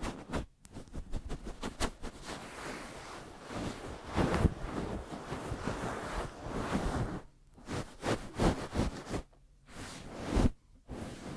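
Hands moving close to a sensitive microphone: quick fluttering finger taps and palms rubbing and swishing, with brief pauses near the end.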